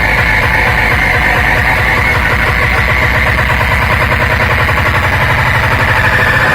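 Very loud, distorted music played through a large sound system in a sound check, with a dense, fast-pulsing bass under a harsh, bright wash.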